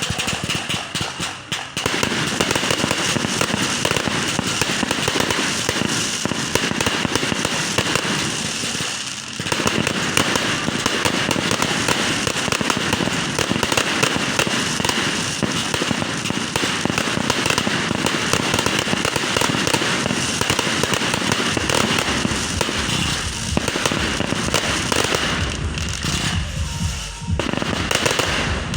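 Fireworks going off in a dense, continuous crackle of rapid bangs, with a brief lull about nine seconds in.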